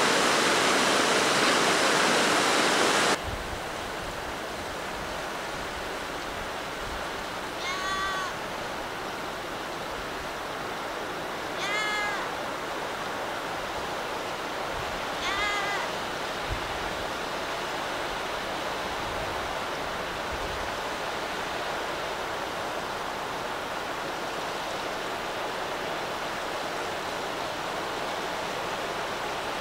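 Steady rush of river water pouring over a low weir. For the first three seconds a louder, hissier rush of water, which cuts off abruptly; around the middle, three short pitched calls about four seconds apart.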